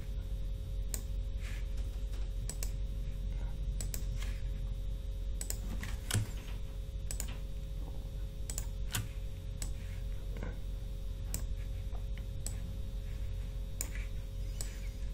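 Irregular clicks of a computer mouse and keyboard, roughly one a second, over a steady low hum.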